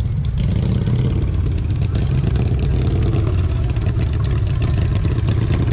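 A vehicle engine running steadily with a low, even hum.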